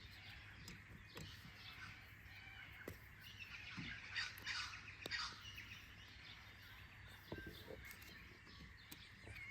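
Faint morning birdsong: several birds chirping and calling over one another, busiest about four to five seconds in, with a few sharp clicks in between.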